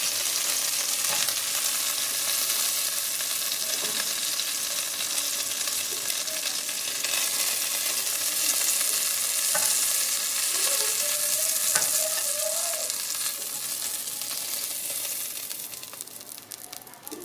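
Chicken pieces pan-frying in butter: a steady sizzle with a few clicks of a utensil in the pan. The sizzle dies down near the end.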